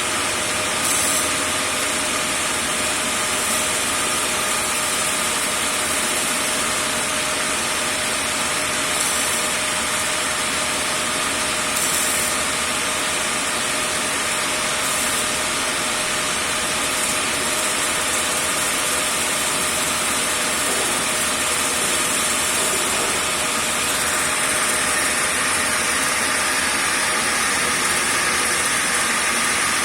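A grinder running steadily under power, an even mechanical noise with a steady whine that hardly changes.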